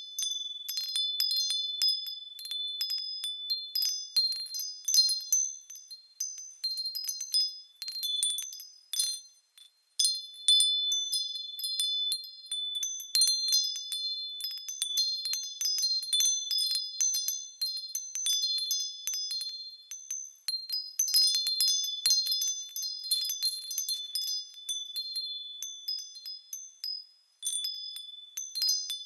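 Small high-pitched bells tinkling continuously as they swing, many overlapping strikes and ringing tones with no low notes, with two brief breaks, one about nine seconds in and one near the end.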